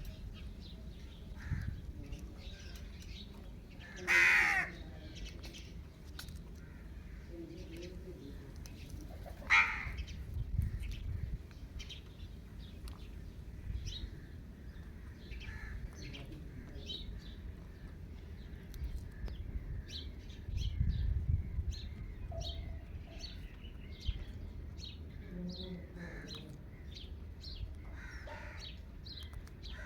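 Indian ringneck parakeet calling. It gives a loud harsh screech about four seconds in and a shorter one near ten seconds, then a run of quick short chirps through the second half. A low rumble swells in the middle.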